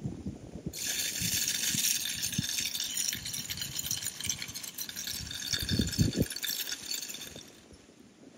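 Tripod game feeder throwing feed: a dense high rattle of kernels spraying off the spinner that starts abruptly about a second in and cuts off sharply about seven seconds later. A couple of low thumps near the end.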